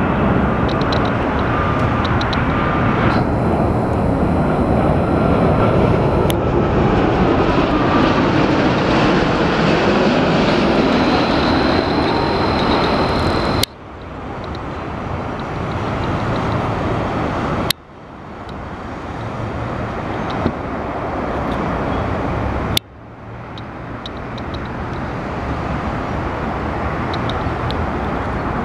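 Twin jet engines of a Boeing 787-8 Dreamliner on final approach: a steady, loud rushing sound with a faint high whine. Three times the sound drops sharply and then builds back up over a few seconds.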